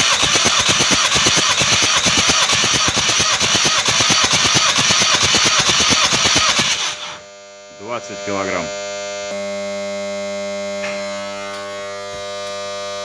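Starter motor cranking a VW 2.0-litre 16-valve CFF turbodiesel for a compression test on cylinder one: a loud, rapid, even chugging for about seven seconds, then it stops suddenly. That cylinder reads 20 kg/cm².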